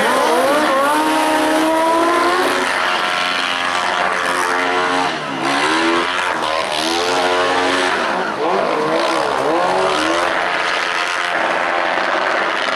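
Sport motorcycle engine revving hard during stunt riding. The revs climb and drop back several times, with sharp dips about five seconds and about eight and a half seconds in.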